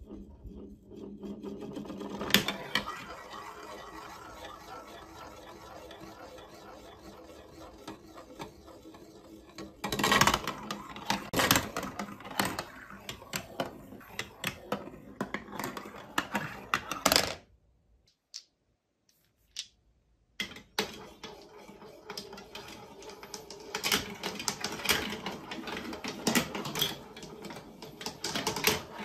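Glass marbles rolling on plastic marble-run track pieces. First a steady rolling hum as a marble circles a spiral funnel, then quick clicks and rattles as marbles drop through the chutes and knock along the tracks. The clicking stops for about three seconds just past the middle, then starts again.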